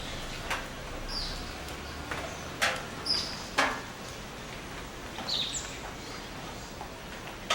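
Rainforest birds at dawn giving short, high, falling whistled calls, three times, over a steady background hiss. A few sharp clicks, the loudest sounds here, come between the calls.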